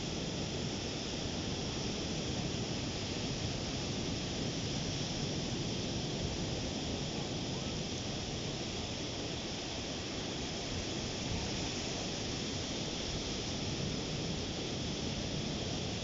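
Ocean surf washing onto a sandy beach: a steady, even rush of breaking waves with no single crash standing out.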